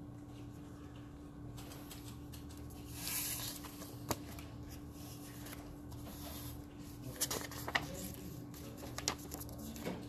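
Pen writing on paper and sheets of paper rustling as pages are handled, with a few sharp taps about four seconds in and again around seven to nine seconds, over a faint steady hum.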